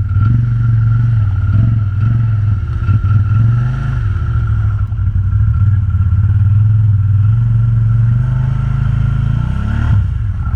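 ATV engine working under load through a deep patch of terrain, its pitch wavering with the throttle and a steady higher whine alongside; about nine seconds in the revs climb, then drop away.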